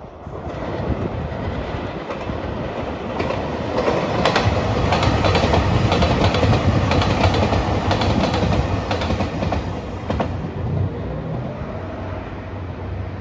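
JR Shikoku 2700 series diesel express train passing close by: the diesel engine drone builds up, then the wheels clack over rail joints in a quick regular run as the cars go past. The clacking stops about ten seconds in and the train's sound eases off as it moves away.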